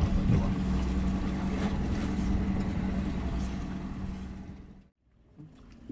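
Fishing boat's engine running with a steady hum, fading away about four and a half seconds in.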